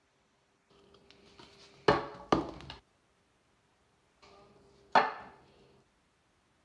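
Food containers being set down on a kitchen counter: two sharp knocks close together about two seconds in, and another about five seconds in.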